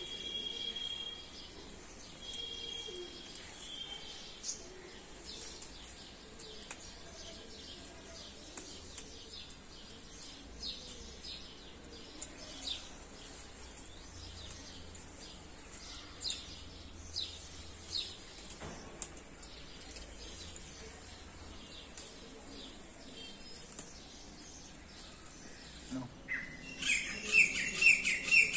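Small birds chirping and calling throughout, with three short, steady whistled notes in the first few seconds. Near the end a bird starts a series of loud, harsh squawking calls.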